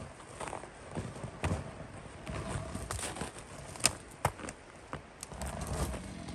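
Scattered footsteps, crunches and knocks of someone working around a cut log, with two sharper knocks about four seconds in; no chainsaw running.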